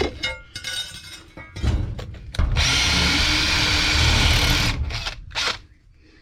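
Power drill with a masonry bit drilling into a concrete slab, running steadily for about two seconds, with a few knocks of handling before and after.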